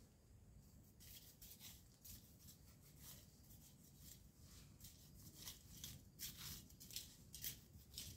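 Weeds and grass being pulled up and torn by hand: faint, short, irregular rustling and tearing sounds that start about a second in and come louder and closer together in the second half.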